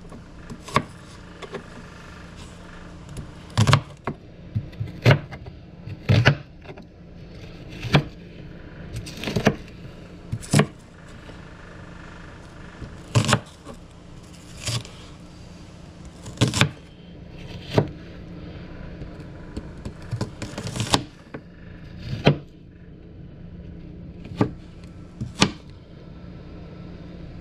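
Kitchen knife slicing a white onion on a plastic cutting board: sharp, irregular knocks of the blade striking the board, roughly one every second or two, over a steady low hum.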